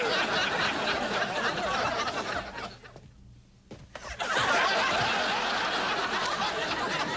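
Sitcom studio audience laughing, in two waves with a brief lull of about a second roughly three seconds in.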